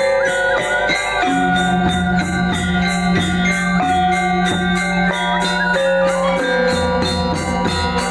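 Balinese gong kebyar gamelan playing: bronze metallophones ring an interlocking melody over sustained low gong tones. A clashing cymbal-like stroke keeps a steady pulse of about three to four a second.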